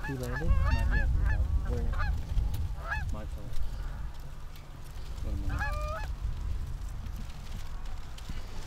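Flock of geese honking: many overlapping honks in the first three seconds, another short cluster a little past the middle, then thinning out. A steady low rumble of wind runs underneath.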